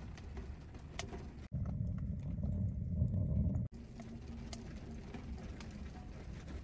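Low, steady rumble of strong wind buffeting a tent, with scattered light clicks and ticks. The rumble grows louder for about two seconds in the middle, then drops back abruptly.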